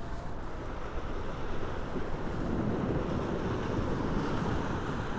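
Steady wind noise on the microphone, with sea surf washing on a rocky shore underneath.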